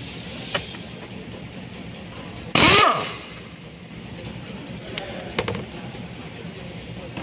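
Hand work in a car's engine bay: a few sharp clicks and knocks of parts and tools being handled, with one short, loud burst of noise about two and a half seconds in.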